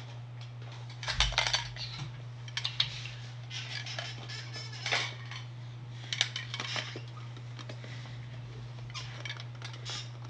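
Objects being handled and set down on a tabletop: scattered clicks, rustles and light knocks, with a heavier thump about a second in, over a steady low electrical hum.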